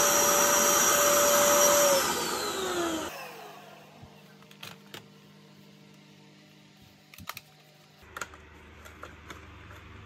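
Electrolux Well Q6 cordless stick vacuum running with a high whine, then its motor winding down in a falling pitch and stopping about three seconds in. After that, a few light plastic clicks and knocks as the hand unit is handled.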